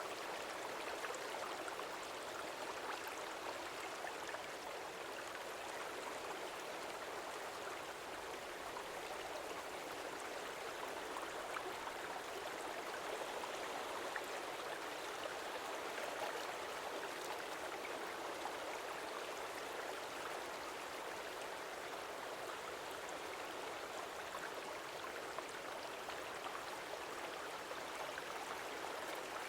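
Stream water flowing steadily, an even rushing noise with no distinct splashes or changes.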